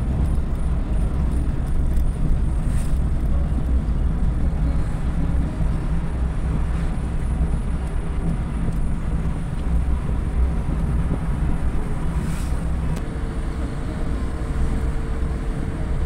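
Steady low rumble of a vehicle's engine and tyres on the road, heard from inside the cabin while driving. A faint steady tone joins in about thirteen seconds in.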